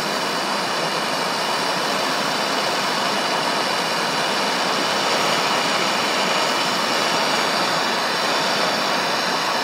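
Handheld gas torch flame hissing steadily as it heats a rolled stainless steel mesh wick red-hot to oxidize it.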